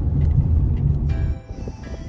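Low rumble of a moving car heard from inside the cabin, cut off a little over a second in as background music with steady tones takes over.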